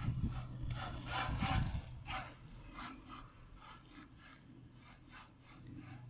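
Mafia Bomber wheelie bike being ridden: irregular rasping and scraping strokes, loudest in the first two seconds, over a steady low hum.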